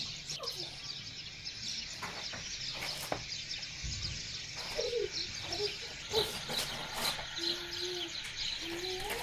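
Many small birds chirping and chattering in the background, a steady dense chorus of short calls, with a few faint sharp clicks.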